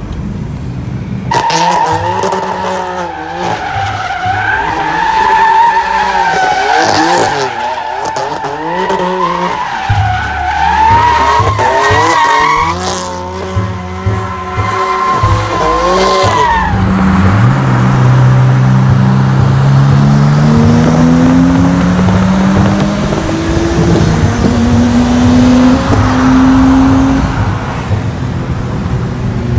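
Car tyres squealing in a long, wavering screech for about fifteen seconds as a car drifts, with its engine running underneath. Then the squeal stops and an engine revs up, its pitch climbing in several steps.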